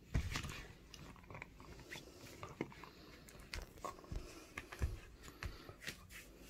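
A beagle chewing a spiky rubber bone toy: irregular bites and clicks of teeth on the toy, the loudest just after the start and again near five seconds in.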